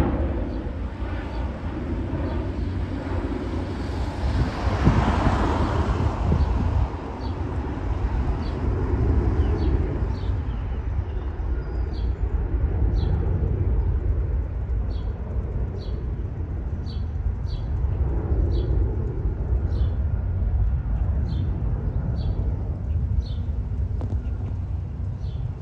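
Twin-engine jet airliner climbing away after takeoff: a deep, steady engine rumble that swells about five seconds in, then settles as the plane draws away.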